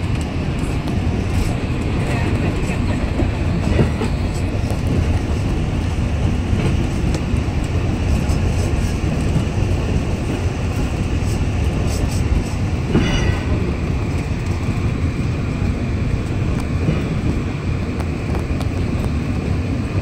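Alishan Forest Railway narrow-gauge train running, heard from inside a passenger carriage: a steady rumble of wheels on rails and the moving car.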